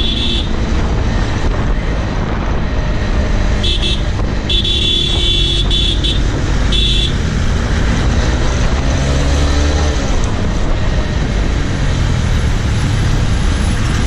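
Motorcycle riding at speed through city traffic, its engine and road and wind noise steady and loud. Vehicle horns honk three times, about four, five and seven seconds in, and the engine pitch climbs and drops around eight to ten seconds in.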